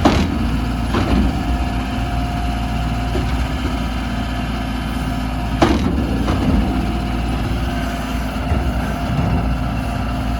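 Skid steer's diesel engine running steadily, with a few sharp knocks: a loud one at the start, one about a second in, and a loud one with a smaller follow-up around five and a half to six seconds in.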